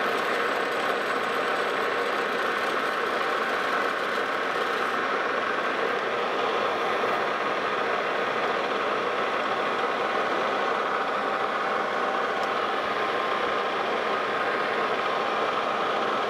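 Lodge & Shipley metal lathe running steadily under power: a constant mechanical hum with several steady tones while a carbide insert boring bar takes the final threading pass on an internal left-hand Acme thread in a nut.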